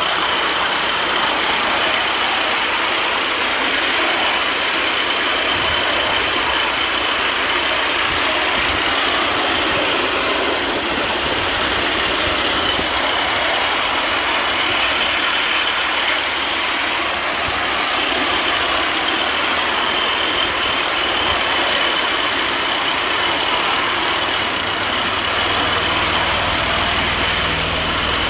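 A 3.5 inch gauge live-steam B2 locomotive and its riding car running along miniature railway track, heard from the riding car: a steady rolling noise of wheels on rails, with a steady high-pitched ring over it.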